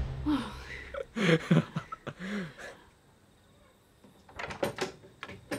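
A farmhouse door's latch and lock clicking and rattling in several sharp clicks as the door is unlocked from inside, starting about four seconds in. Before that a woman's voice makes a few brief sounds, followed by a short quiet gap.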